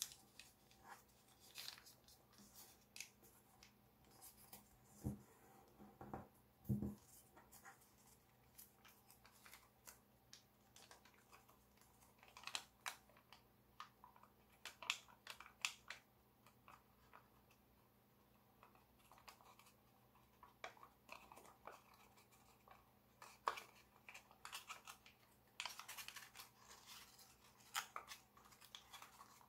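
Faint crackling and rustling of a sheet of origami paper being folded and creased by hand, in scattered bursts, with a few soft thumps about five to seven seconds in.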